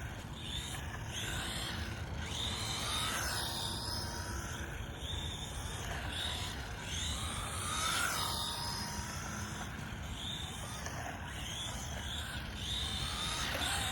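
Team Associated Reflex 14R 1/14-scale electric RC car's motor and drivetrain whining, rising and falling in pitch again and again as it speeds up and slows through the turns.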